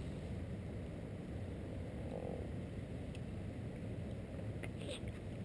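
Steady low outdoor rumble, with a few faint small clicks near the end.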